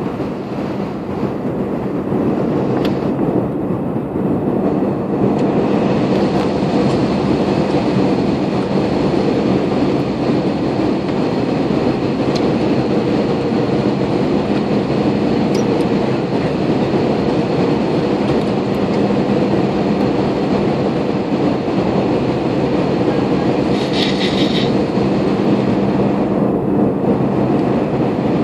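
Jet airliner cabin noise heard from a window seat: the steady roar of the turbofan engines and rushing air, with a constant hum underneath. It grows slightly louder about five seconds in.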